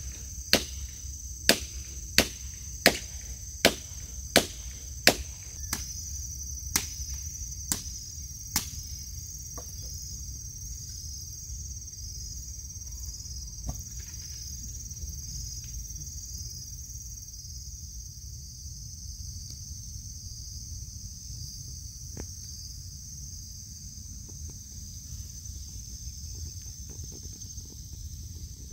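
Steady high-pitched chirring of insects, with a run of about a dozen sharp knocks, one every three-quarters of a second or so, that stops about nine seconds in; the knocks are the loudest sound.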